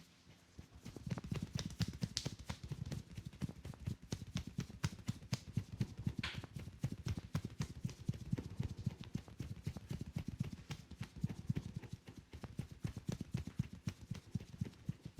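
Hands tapping and slapping in quick succession in a percussive Indian massage: a fast, steady patter of dull thuds, several strikes a second, starting about a second in.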